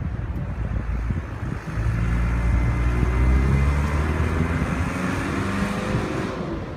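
A motor vehicle's engine passing close by. It gets louder about two seconds in, and its pitch falls as it moves away near the end.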